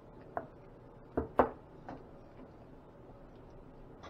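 Wooden spoon knocking against a stainless steel frying pan while stirring tomato sauce: four sharp knocks with a short metallic ring, two of them in quick succession a little over a second in, the loudest.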